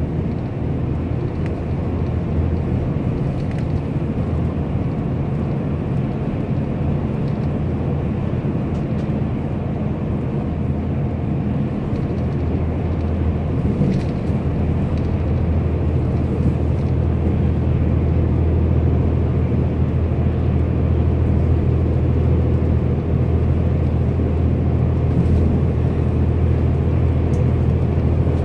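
Bus cabin noise at highway speed: a steady low rumble of the bus's engine and tyres on the road, growing slightly louder in the second half.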